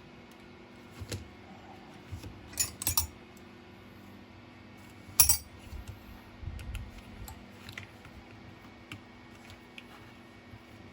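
Light metallic clicks and clinks of small tools and parts being handled while an e-bike half-twist throttle is taken apart. A quick cluster of clicks comes about two and a half seconds in, the loudest single clink about five seconds in, then a few smaller ticks.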